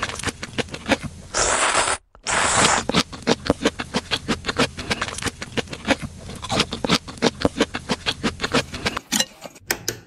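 Close-miked eating sounds of a bowl of noodles: quick wet chewing clicks, about four or five a second, broken about a second and a half in by two long, loud slurps.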